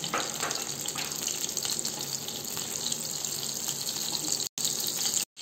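Butter melting and sizzling in hot mustard oil in a kadhai: a steady hiss with faint crackles, cutting out briefly twice near the end.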